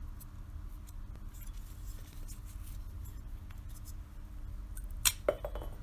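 Light handling noises of the removed brake caliper bracket: scattered faint ticks and one sharp click about five seconds in, over a steady low hum.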